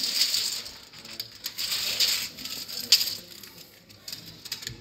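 Rustling and scraping handling noise with a few sharp clicks as a steel tape measure is stretched out and held along the floor. It is loudest in the first three seconds, then fainter.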